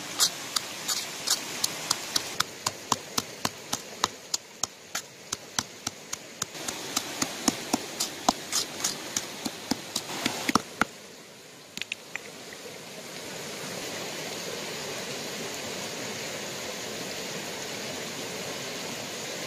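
A pestle pounding chillies and garlic in a coconut-shell bowl: sharp knocks at about three to four a second, stopping about ten and a half seconds in. After that, the steady rush of a stream.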